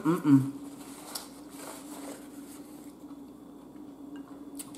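A short voiced 'mm' at the start, then a faint steady hum with a single click near the end.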